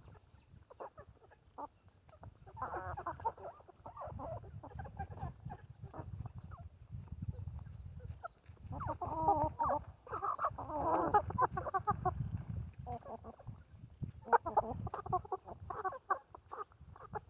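Chickens clucking while they feed, the calls coming in bunches with pauses between, over a low rumble.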